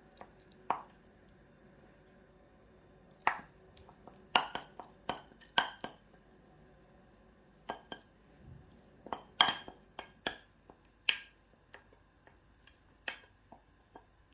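Irregular sharp clicks and light knocks of kitchen utensils and dishware being handled, some with a brief ringing clink.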